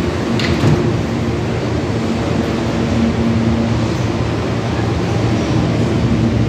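R160 New York City Subway train rolling slowly along the platform: a continuous rumble of steel wheels on rail with a steady motor hum, and a short high squeak about half a second in.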